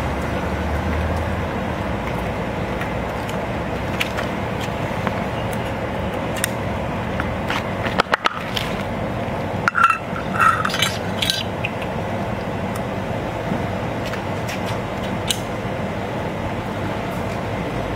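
Ring-pull metal pet-food can being opened by hand: a quick cluster of sharp clicks about eight seconds in as the tab is lifted, then a few more clinks and scrapes over the next few seconds as the lid is peeled off. Steady background noise throughout.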